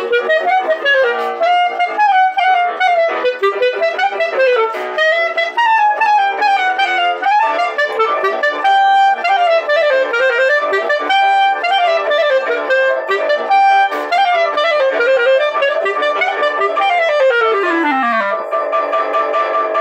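Clarinet played in quick runs of notes, with a few short held notes in the middle and a long run sweeping down to a low note near the end.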